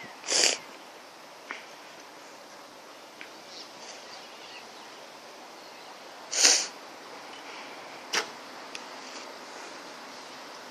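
Two shots from a Fanton Olympic recurve bow with a 28-lb draw, about six seconds apart. Each string release is a short, sharp burst of sound. A fainter single click follows about eight seconds in.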